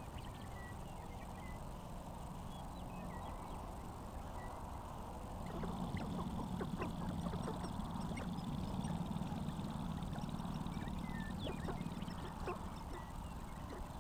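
Sharp-tailed grouse calling on a lek: quacking clucks and cackles, over short, high chirps of small birds. A low rumble swells in about five seconds in and eases off near the end.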